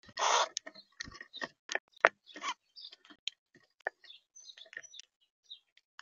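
Birds at a feeder: a brief rushing burst at the start, then scattered short taps and clicks with brief high chirps.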